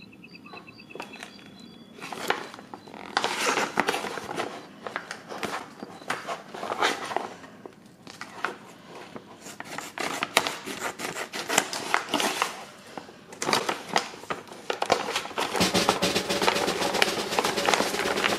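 Plastic foil blind bags crinkling and rustling in the hands as they are handled and turned over. Near the end, background music with drums comes in under the crinkling.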